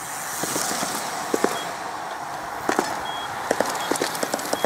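Road bikes rolling past with a rush of tyre and wind noise. Their tyres bump over a timing mat in quick pairs of clicks as the front and then the rear wheel crosses, and there are a few short high beeps.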